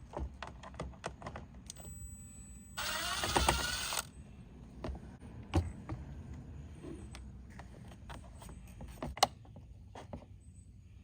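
A cordless power driver spins for about a second, about three seconds in, with its pitch rising as it runs, backing out a Phillips screw. It is followed by scattered small clicks and taps of metal parts being handled.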